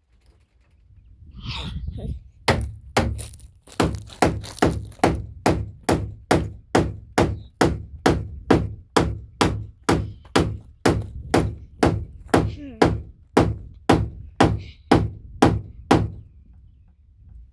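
Hammer striking wood in a steady run of about thirty blows, roughly two a second, stopping near the end.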